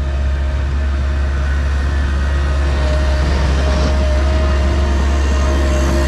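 Gehl 4625 skid steer's diesel engine running steadily under load while pushing snow with its bucket. A faint steady whine grows louder about three seconds in.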